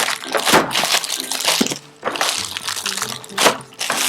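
Crackling and crinkling of plastic being handled, in several irregular bursts, over soft background music.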